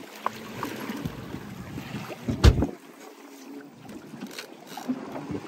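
Water churning and splashing against the side of a small boat as a hooked salmon is fought at the surface with a sea lion closing in. There is one loud, low thud about halfway through.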